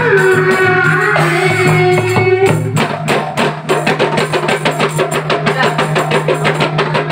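Marawis ensemble music: a held, gently gliding melodic line over a steady low drone, then from about three seconds in the hand drums break into a fast, even rhythm of strikes.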